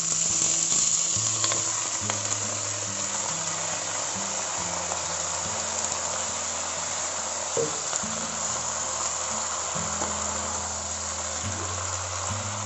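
Freshly washed, still-wet cabbage leaves sizzling in hot oil in a wok. The sizzle starts as the cabbage goes in, is loudest in the first couple of seconds, then settles to a steady hiss.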